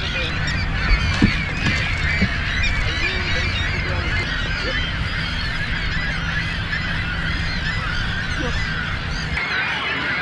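A large flock of gulls calling over one another, with many short squawks and cries overlapping continuously. Underneath runs a low rumble that cuts off near the end.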